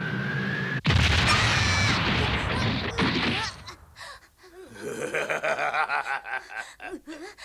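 Cartoon sound effects: a rising whistling tone is cut off about a second in by a loud crash with noise that runs on for a couple of seconds. Later, a character's wordless voice wavers up and down.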